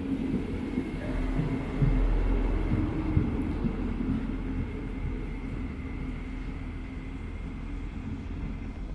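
A train rolling past: a low rumble with irregular wheel knocks on the rails that slowly fades, with a faint steady high whine underneath.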